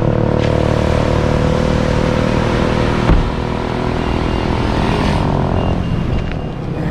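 A motor vehicle's engine running steadily with road noise, with a single knock about three seconds in.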